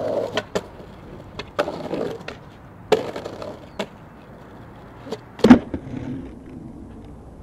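Skateboard on Bones X-Formula X97 wheels rolling over asphalt, with a run of sharp board clacks and knocks every second or so; the loudest knock comes about five and a half seconds in.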